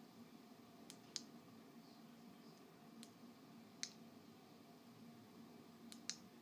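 Near silence with a faint steady low hum, broken by about six short, sharp clicks that come in loose pairs.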